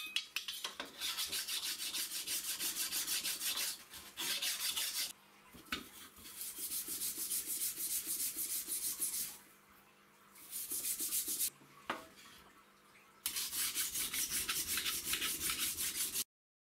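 Steel deba knife blade scraped back and forth against an abrasive stone, a gritty rasp in fast strokes of about four a second, in several runs with short pauses, as rust is scrubbed off and the blade is worked on the whetstone. It cuts off abruptly near the end.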